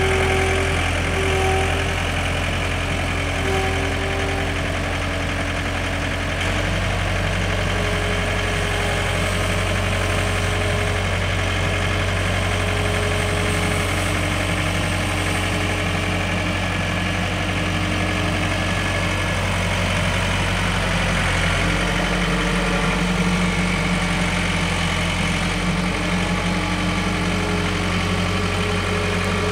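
John Deere 317 skid steer's diesel engine running steadily as the machine moves. Its note changes about six and a half seconds in.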